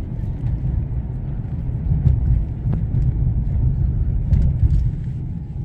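Low rumble of a motor vehicle running, engine and road noise heavy in the bass.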